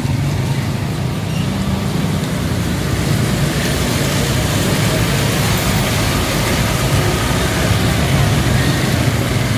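Street traffic: motor vehicle engines running steadily under a continuous hiss that grows brighter about three and a half seconds in.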